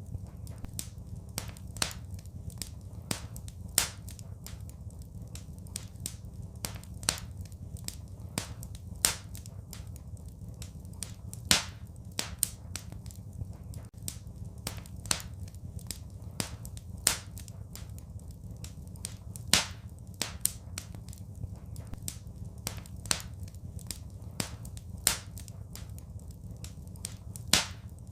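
Wood fire crackling in a fireplace: irregular sharp snaps and pops, a few much louder than the rest, over a steady low rumble.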